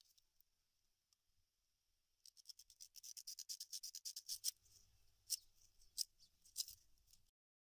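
A yucca leaf being pulled and torn from the plant's crown by hand: a quick run of dry crackles of fibrous leaf tissue giving way, then three single sharp cracks.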